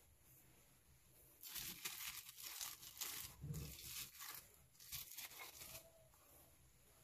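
Plastic wrap crinkling in irregular bursts as hands move dough buns about on it, starting about a second and a half in and dying away near the end.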